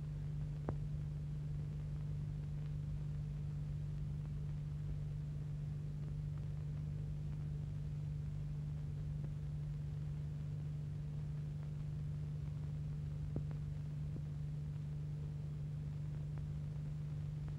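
Steady low electrical hum with hiss and rumble, the noise floor of an old film soundtrack with no music or speech on it. Two faint clicks, about twelve seconds apart.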